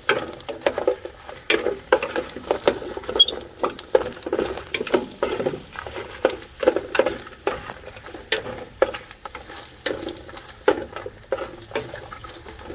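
Wooden spoon stirring dried pasilla and New Mexico chiles in a large aluminum pot, with irregular scrapes and knocks against the pot and a light sizzle as the chiles brown in a little oil.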